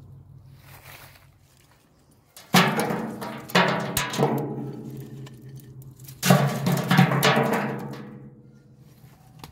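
Handfuls of wood chips thrown onto the steel floor of a homemade box smoker: each throw clatters and the metal box rings, fading after. There are three throws a few seconds in and three more about six seconds in.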